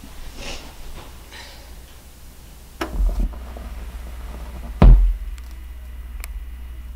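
Two soft rustles, then a turntable's sounds: a thump about three seconds in and a louder, deeper thump near five seconds in as the stylus is lowered onto the vinyl record, followed by a low hum with a faint tick of the record running silent before the music starts.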